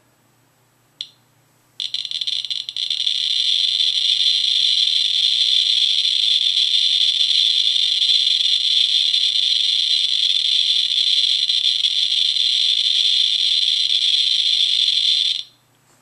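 Geiger counter with a pancake probe held over a smoke detector's americium-241 button. After a single click about a second in, the alpha counts come so fast that the clicks merge into a loud, continuous hiss. The hiss starts about two seconds in and cuts off suddenly near the end.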